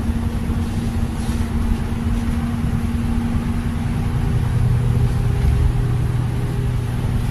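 Bus engine and road noise heard from inside the cabin: a steady low drone, with a deeper hum that grows stronger about halfway through.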